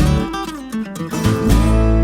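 Outro music: acoustic guitar, plucked notes, then a strummed chord about one and a half seconds in that rings on.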